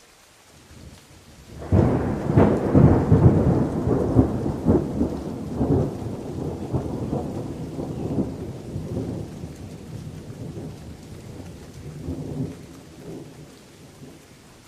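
Thunder over steady rain falling on leaves: a sudden loud, crackling clap about two seconds in that rolls away in a long rumble, swelling once more near the end.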